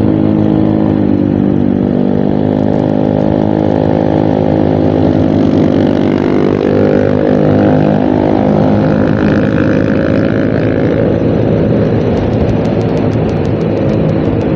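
Motorcycle engine running at road speed, heard from the rider's own bike over wind and road noise, its pitch shifting a little now and then. Another motorcycle passes close alongside about eight to ten seconds in.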